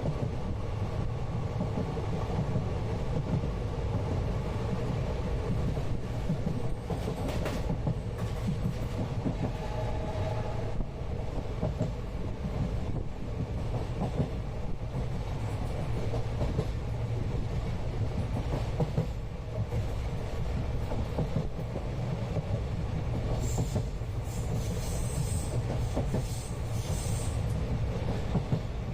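Inside a moving Indian passenger train carriage: a steady rumble of the running train, with wheels clicking over the rail joints. A few brief high-pitched squeals come near the end.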